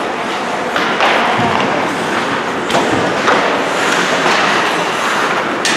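Sharp knocks of an ice hockey game against the rink boards and glass, three or so, the loudest near the end, over a steady wash of arena crowd noise.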